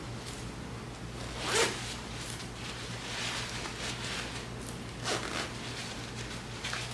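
A zipper being pulled, with a sharp handling knock about one and a half seconds in and another about five seconds in.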